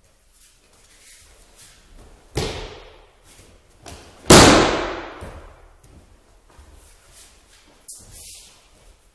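Judo throw onto tatami mats: a thump about two and a half seconds in as the tai otoshi entry is made, then the loudest sound, the thrown judoka landing from the ko uchi gari with a breakfall slap and body thud about four seconds in, echoing in the hall. A smaller thump follows near the end.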